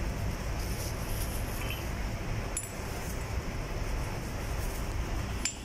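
Steady low machinery drone, with two sharp metallic clinks of a steel lapping tool against the fuel valve body, one about two and a half seconds in and one near the end.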